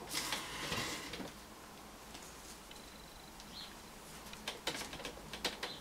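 Faint handling noise from a painting being moved: a soft rustle in the first second, then a few light clicks near the end.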